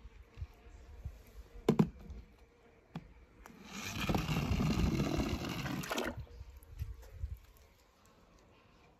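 Plastic toy monster truck handled with a few light knocks, then set on a ramp of wooden craft sticks and rolling down: a rushing, scraping noise lasting about two seconds.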